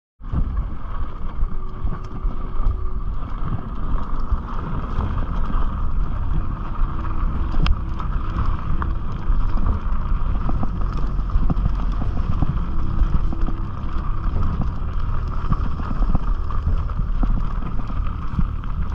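Mountain bike ridden along a dirt singletrack: a steady rumble of tyres on dirt and stones, with irregular small rattles and clicks from the bike over bumps, and wind buffeting the microphone.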